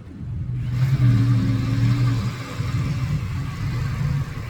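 Vehicle engine running, revving up about a second in and staying revved.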